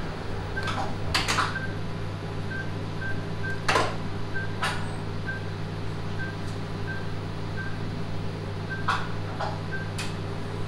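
Patient monitor beeping a short, high tone at slightly uneven gaps of about half a second to a second, over a steady low equipment hum. Scattered sharp clicks and knocks of handled equipment, the loudest about a second in and about four seconds in.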